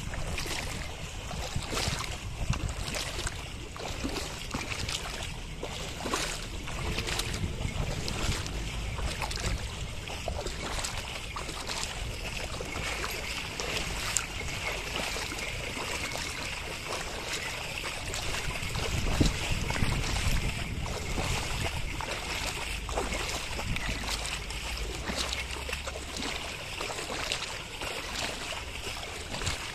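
A pair of bullocks wading through a flooded paddy field as they pull a plough, with repeated irregular splashing of water and mud under their hooves and the plough. Wind rumbles on the microphone throughout.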